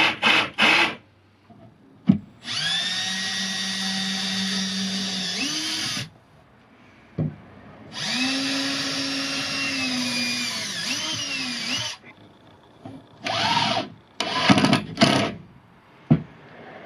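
Milwaukee M18 cordless jig saw motor running twice, each run about four seconds long at a steady pitch, after a few clicks near the start. Irregular knocks and rattles follow near the end.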